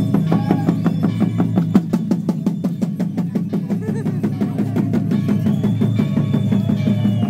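Drums played in a fast, even beat.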